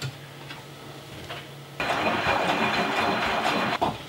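Front-loading washing machine running briefly with a loud, even hissing rush that starts abruptly about two seconds in and cuts off about two seconds later, followed by a click of the door latch.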